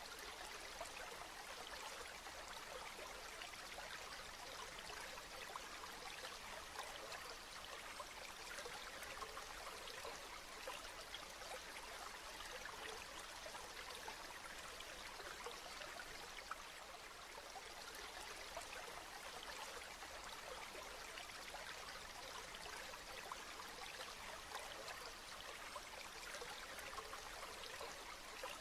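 Steady rain falling: an even hiss dense with the small ticks of individual drops.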